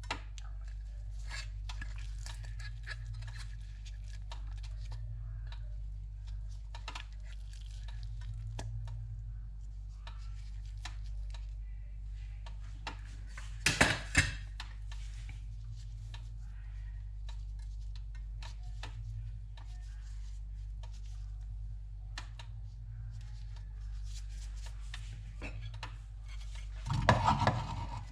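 Dishes and cutlery being handled during food preparation: scattered light clinks and scrapes over a steady low hum, with one loud clatter about halfway through.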